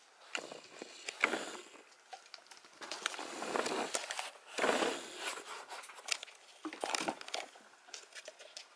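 Irregular light taps and scuffles as a kitten bats a small treat across a wooden floor, with rustling swells in between.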